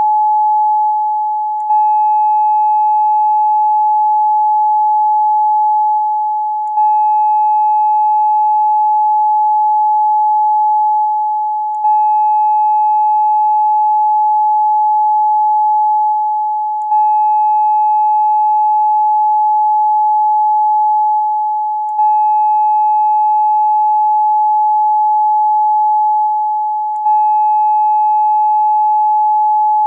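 A steady 852 Hz tone, the frequency used for third eye chakra meditation, with faint higher overtones. Its level sags slightly and it restarts about every five seconds, like a short loop repeating.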